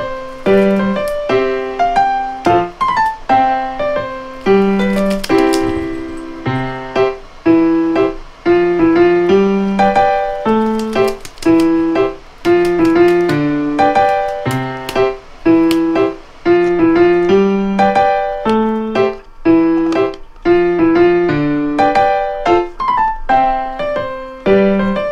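Background piano music: a light melody of short notes over a repeating bass line.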